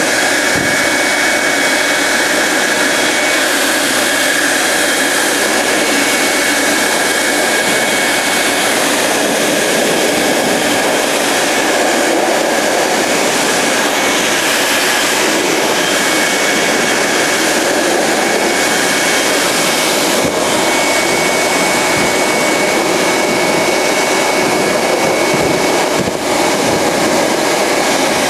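Pet grooming blower running steadily, its air stream blowing into a long-haired English Angora rabbit's coat: a loud, even rushing with a faint high whine on top.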